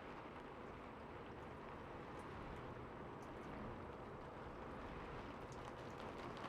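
Steady rain falling: an even hiss with a few faint, scattered drip ticks.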